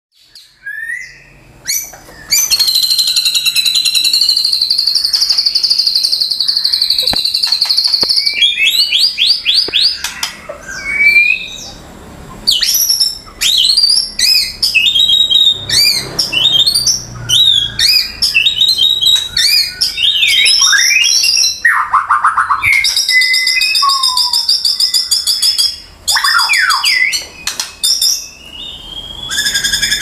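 White-rumped shama (murai batu) in full, continuous song: a loud, varied string of clear whistles, quick rising and falling glides and long fast rattling trills, starting about two seconds in with only brief pauses.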